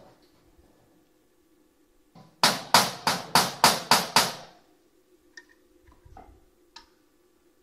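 Hammer blows on a car body panel: seven sharp strikes in a quick even run, about four a second, followed by a few light taps.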